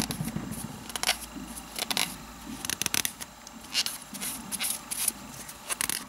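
A series of short, irregular rubbing swishes: fingernails freshly coated with cured gel top coat being wiped with a cleanser pad to degrease them.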